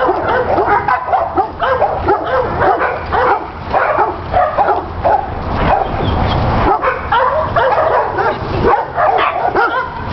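Dogs barking and yipping in play, short high calls coming rapidly and overlapping, with no letup.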